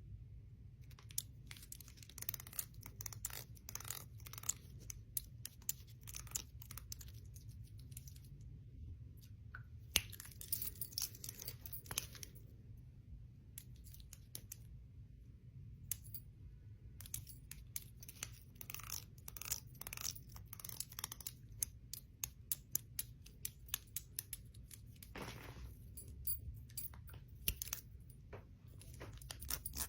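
Bangles and rings clicking and clinking against each other in quick, irregular runs of small sharp taps, with short pauses, over a low steady hum.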